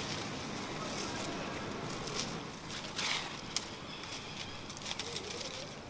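Leaves and thin branches rustling and crackling as a young monkey climbs and leaps through saplings, with a few sharp snaps from about two seconds in.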